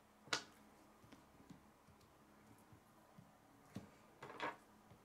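K'nex plastic rods and connectors clicking as they are handled and snapped together: one sharp click shortly after the start, then a few more near the end.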